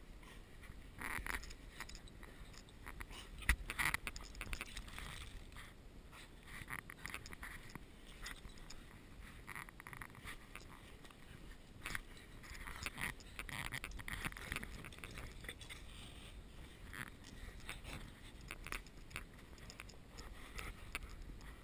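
Dogs trampling, digging and nosing in deep snow right at the microphone: irregular crunching, scraping and scuffing, with a sharp knock about three and a half seconds in.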